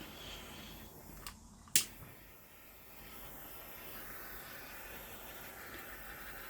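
Faint steady hiss of room tone, broken by a brief dropout and a single sharp click a little under two seconds in.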